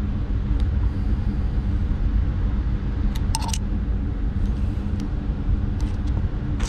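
Steady low background rumble and hum, with a few light clicks of small parts being handled about three and a half seconds in and again near the end.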